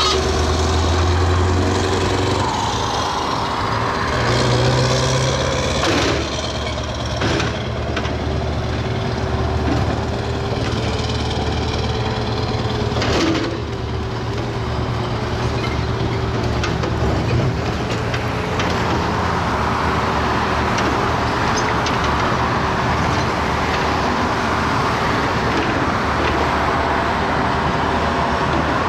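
Road traffic passing close by, over the low, steady running of a Scania tipper truck's diesel engine. A few short knocks sound in the first half.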